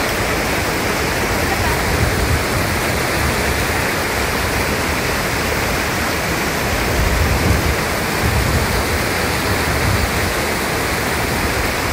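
Narusawa Falls and its rocky stream rushing: a loud, steady, even roar of falling and tumbling water.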